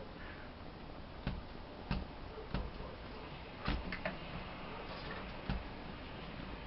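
A handful of light, irregular taps and knocks over a steady background hiss.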